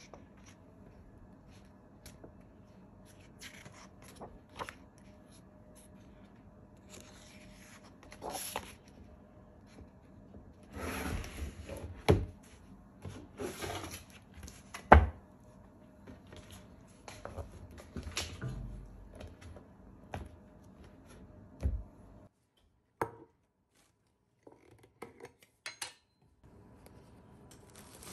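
Kitchen handling sounds: scattered rubbing and scraping with short knocks and clinks of utensils and dishes. The loudest is a sharp knock about halfway through, and the sound drops out completely for a few seconds near the end.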